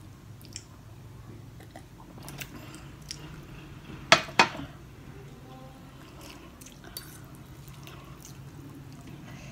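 Quiet eating sounds over a low steady hum: light clicks of a fork against a plate, with two sharp clicks close together about four seconds in.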